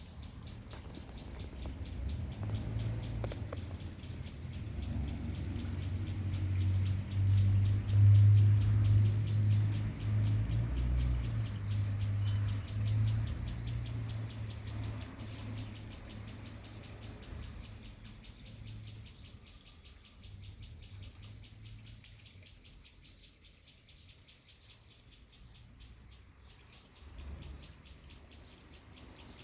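Birds chirping over a low rumble; the rumble swells in the first half and fades away by about eighteen seconds in.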